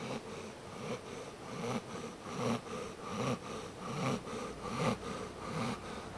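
A sleeping pet snoring, with short snores in a quick, regular rhythm of a little more than one a second.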